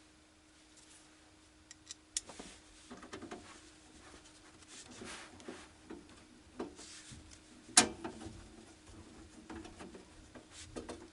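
Handling sounds from a desktop PC case as its side cover is fitted and secured: quiet rubbing and scattered light clicks, with one sharp click about eight seconds in.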